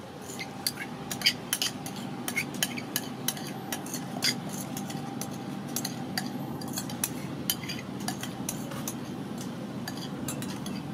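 Metal spoon and fork clinking and scraping against a metal tray and a sauce jar, many short sharp clicks over a steady low hiss, as sauce and chili oil are spooned onto cooked noodles.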